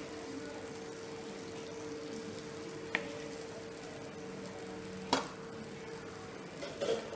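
Cooking oil heating in a nonstick frying pan on a gas burner, with a steady hum and hiss underneath. Two sharp pops come about three and five seconds in, and a few smaller crackles near the end, as the oil gets hot enough for the mustard seeds.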